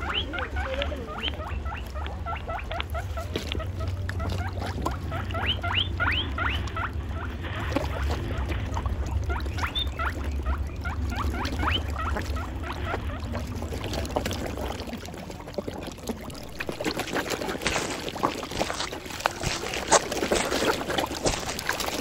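Many short squeaky chirps, several a second, over a low rumble. About two-thirds of the way through they give way to a dense splashing and crackling of water as a mass of carp crowd and gulp at the surface for food.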